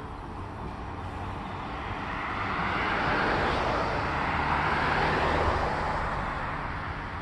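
SUV driving past on the road, its tyre and engine noise swelling to a peak about four seconds in and then fading.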